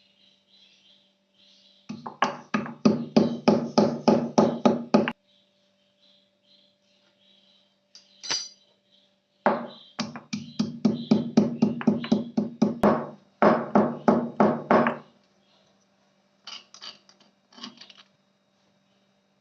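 Rapid, regular knocking strikes, about three to four a second, in three runs of a few seconds each, over a faint steady hum. A few lighter clicks follow near the end.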